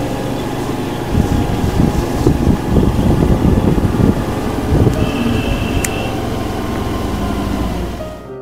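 Vehicle driving on a rough road: engine running steadily under road rumble and wind noise. A brief high beep sounds about five seconds in, followed by a sharp click.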